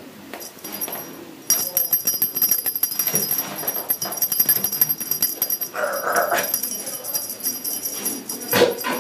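A fast, steady jingling rattle from a small cat toy being shaken, starting about one and a half seconds in, with a short kitten mew about six seconds in.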